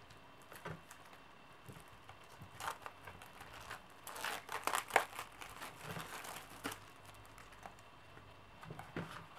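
Card game cards and packaging being handled: crinkling and rustling in scattered short bursts, busiest around three seconds in and again from about four to seven seconds.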